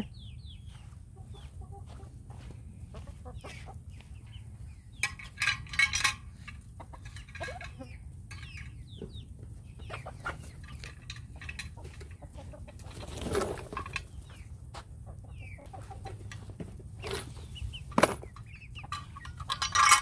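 Chickens clucking in short, scattered calls, with a few sharp clicks and knocks in between.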